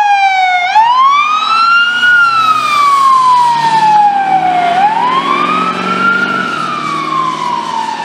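Ambulance siren sounding a slow wail, its pitch gliding up and then down about every four seconds, over the low running of the ambulance as it drives past.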